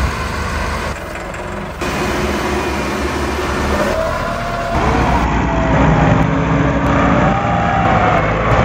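Tractor diesel engines working hard under load, pulling a heavy sugarcane trolley. The sound changes abruptly twice, about two and five seconds in, where short clips are cut together.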